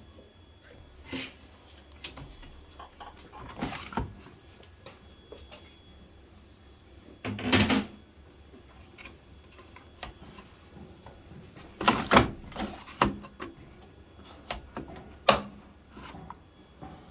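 A series of irregular knocks and clunks, like something hard being handled or opened and closed. The loudest come about halfway through and in a cluster about two-thirds of the way through, over a low background.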